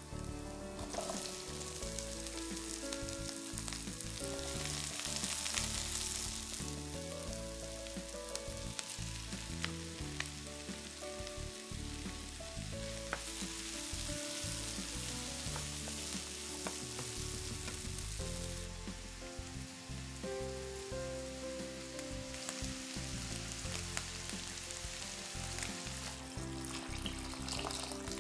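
Sliced spring onion, then carrot, onion and bell pepper sizzling in hot oil in a nonstick frying pan as they are stir-fried with a wooden spoon, with a few light scrapes and taps. The sizzle swells about five seconds in and again midway. Soft background music runs underneath.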